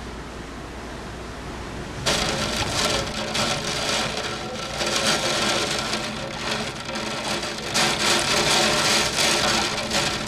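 Hurricane-force wind and rain, a loud rushing hiss that swells and eases in gusts. It comes in suddenly about two seconds in, after a quieter steady hiss.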